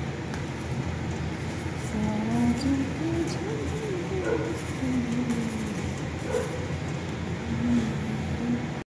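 Steady rushing noise of a kitchen chimney fan and an aloo paratha cooking on a tawa, with light scrapes of a steel spatula. A few short wavering voice-like tones come through in the background, and the sound drops out for an instant near the end.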